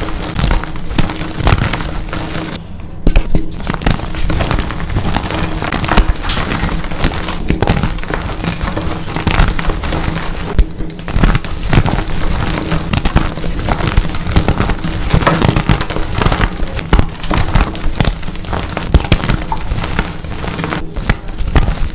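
Dyed gym chalk blocks being crushed and crumbled, a dense run of crisp crunches and crackles.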